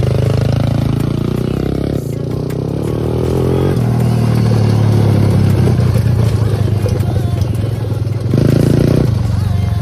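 A small vehicle's engine accelerating at full throttle, its pitch rising over the first few seconds, then running steadily at high revs. It surges louder briefly a little after eight seconds.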